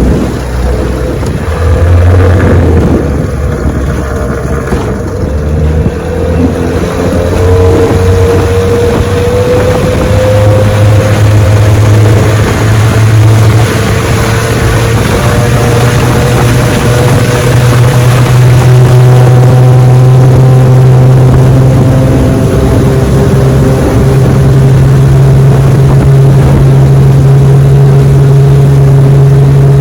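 1966 Evinrude 9.5 hp two-stroke outboard running under way, its pitch climbing gradually as it is throttled up over the first half and then holding steady at speed, over a steady rushing hiss.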